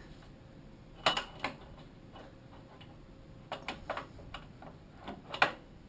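Scattered sharp metal clicks and knocks as a motorcycle's unbolted rear shock absorber is worked free of the frame and linkage, the loudest knock near the end.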